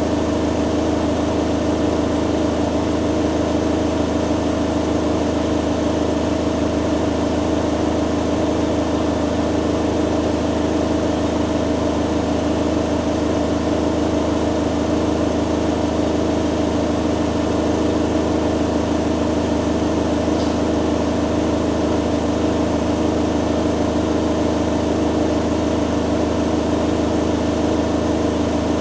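Hoover Dynamic Next DXA610IW3 front-loading washing machine in its spin cycle, the drum spinning at a steady speed with an even motor whine and hum.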